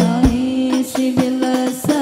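Hadroh music: female voices singing an Arabic song in unison over hand-struck frame drums and a jingling tambourine.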